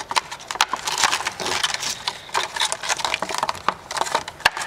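Plastic packaging crinkling and crackling in quick, irregular bursts as a satellite radio antenna is pulled out of it.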